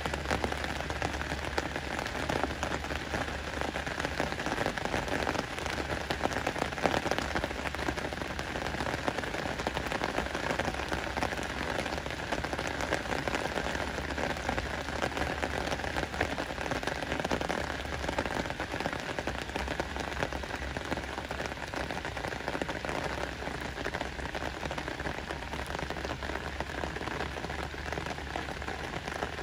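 Steady rain falling on the surface of a lake, a dense, even hiss of countless drops.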